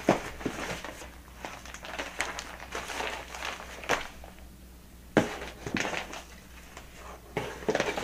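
Packaging rustling and crinkling as plastic-wrapped packs of hair are handled and lifted out of a cardboard shipping box, with scattered sharp clicks and knocks; the sharpest comes about five seconds in.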